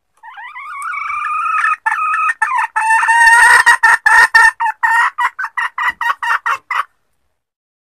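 Junglefowl hen calling: one drawn-out note of about a second and a half, then a run of short clucking notes, about five a second, that grow louder, then quicken and stop abruptly near the end. Played as a lure call, presented as a hen calling to mate.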